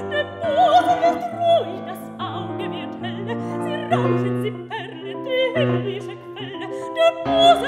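Mezzo-soprano singing a German art song with wide vibrato, accompanied by grand piano chords.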